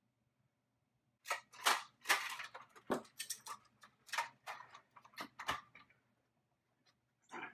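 Toy foam-dart blaster being worked and fired: a rapid, irregular run of sharp clicks and snaps lasting about four seconds, with one more knock near the end.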